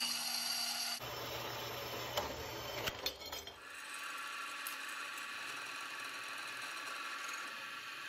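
Machine-shop cutting of steel angle iron: a horizontal band saw cutting, then a stretch of scraping with a few sharp clicks. About three and a half seconds in, a Bridgeport milling machine's end mill starts a steady whining cut, milling a slot in the angle iron.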